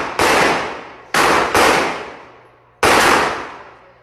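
Gunshots: four loud shots at uneven spacing, two of them close together about a second in and the last near three seconds. Each is followed by a long fading echo.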